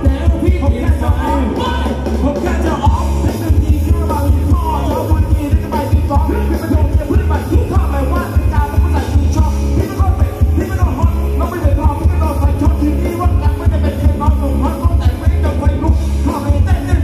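Live Thai ramwong dance band playing loudly over a PA, a singer's voice riding on a heavy, steady bass beat.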